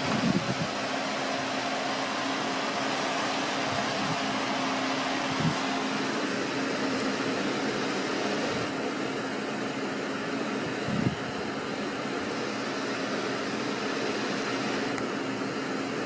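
Cooling fans of a running desktop PC, the Cooler Master HAF 912 case fans and the Hyper 212 EVO CPU cooler fan, giving a steady whirring hiss with a low hum under it. A few low thumps stand out, just after the start, around five and a half seconds in and around eleven seconds in.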